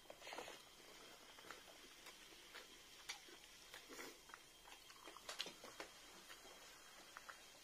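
Faint eating sounds: scattered soft clicks and smacks of chewing, and of hands working rice and chicken curry on a banana leaf.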